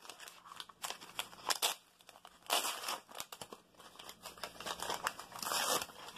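Wrapping on an individually wrapped ink box crinkling and tearing as it is pulled open by hand, in irregular rustles with a few light clicks. There is a longer rustle about two and a half seconds in and again near the end.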